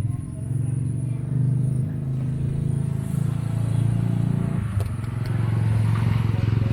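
A small engine running steadily with a low, even hum, with a brief click nearly five seconds in.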